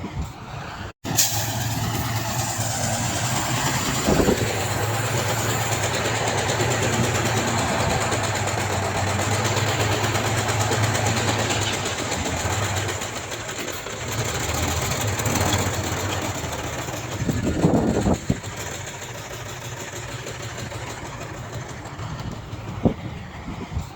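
Heavy earth-moving machinery engine running steadily, with a few short knocks and clanks. The sound drops out for an instant about a second in.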